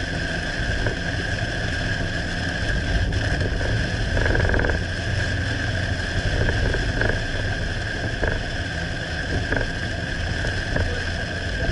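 Steady driving noise heard from inside a car: low engine and tyre rumble under a constant hiss.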